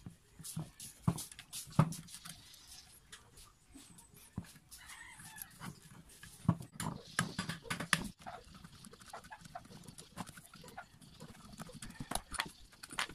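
Irregular clicks, clinks and knocks of a screwdriver, its bits and loose bolts handled against a small electric water pump's metal housing while the pump is taken apart. There are sharper knocks about one and two seconds in and a dense cluster of clicks in the middle.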